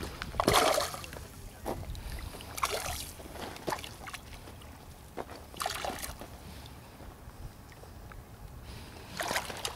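Hooked trout thrashing at the surface of shallow lake water: a few short splashes and sloshes, the loudest about half a second in.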